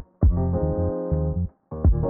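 Background music: sustained chords over a repeating bass line. It breaks off briefly about one and a half seconds in, then comes back.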